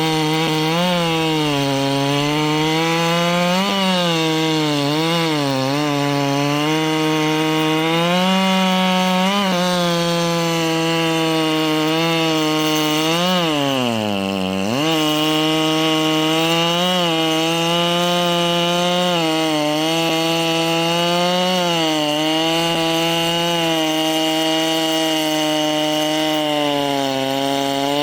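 Ported Echo CS-7310 chainsaw's two-stroke engine running at high revs while cutting wood. Its pitch sags again and again under load, drops sharply about halfway through, then climbs straight back.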